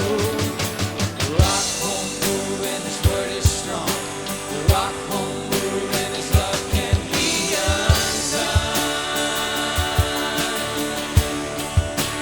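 Worship band playing a rock-style song: a steady drum beat under held chords, with a wordless sung line in the first few seconds.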